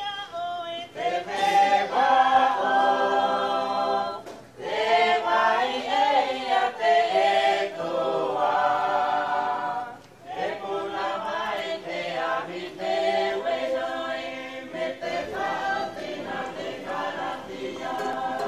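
A choir singing a hymn unaccompanied, several voices in harmony on long held notes, in phrases with brief breaks about four and ten seconds in.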